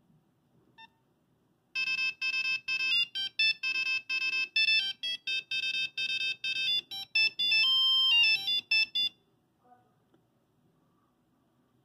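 Nokia 5110 monophonic ringtone: a quick tune of short electronic beeps, starting about two seconds in, with a few longer held notes near its end and stopping about nine seconds in. A single faint beep comes about a second in, before the tune.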